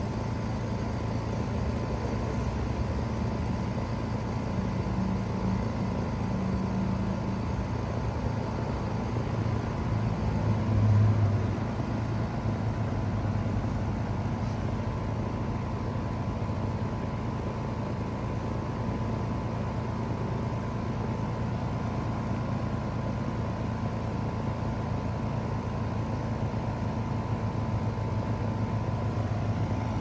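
Trane XR14 3-ton heat pump outdoor unit running in cooling mode: its Alliance scroll compressor and condenser fan give a steady hum, with one brief louder swell about eleven seconds in.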